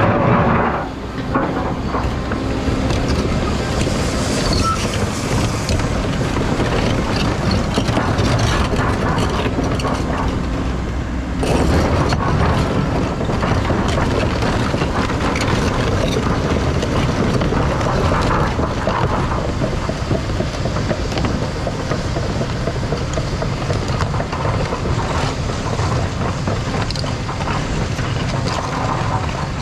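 Caterpillar 335 excavator working rock: engine and hydraulics running under load, with continuous clattering and scraping of stone. The sound turns harsher about 11 seconds in.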